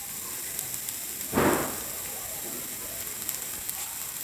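Poha frying in ghee in a pan, a steady soft sizzle and crackle. There is a brief louder rush about a second and a half in as grated coconut is tipped in from a bowl.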